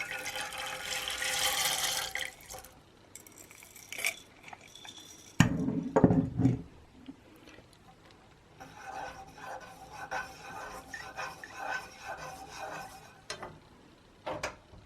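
Beeswax pellets rattling as they are tipped into a pan of warm mineral oil for the first couple of seconds, followed by a few sharp knocks and then light clinking and scraping of the pan and utensils.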